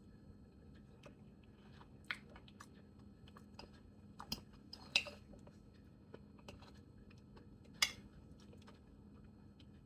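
A person eating yellow yam with corned beef close to the microphone: soft chewing with scattered sharp clicks and taps. The loudest clicks come about two, four and five seconds in and again near eight seconds.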